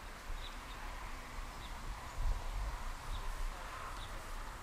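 Quiet woodland ambience: a few faint, short bird chirps over a low rumble that swells about two seconds in.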